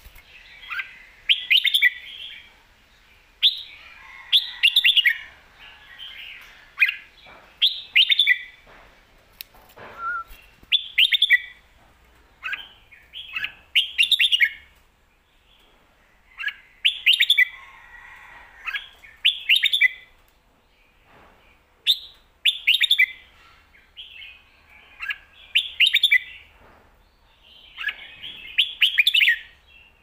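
Caged red-whiskered bulbul singing a series of short, quick, chirpy song phrases, one every two to three seconds.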